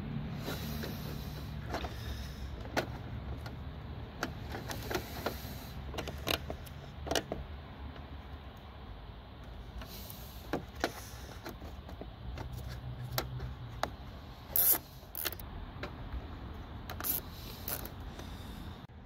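Black plastic zip ties being threaded and pulled tight through an aluminium mesh grille insert, with irregular clicks and short ratcheting zips, the loudest about two-thirds of the way through. A steady low hum runs underneath.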